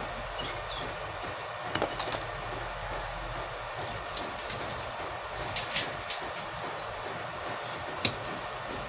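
Electric arc welding: a steady crackling hiss from the arc with scattered sharp pops, several louder ones about two seconds in, near the middle and near the end.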